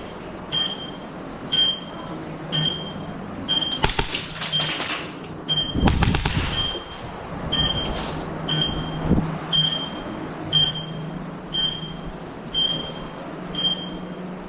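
A short, high electronic beep repeating steadily about once a second. About four seconds in comes a quick run of sharp cracks, like a burst from an airsoft gun, followed by a louder thump or rush.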